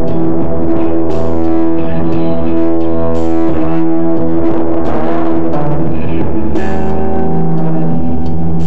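Live electric guitar and synthesizer music: loud, held droning notes and chords that change every second or two, with the pitch wavering around the middle.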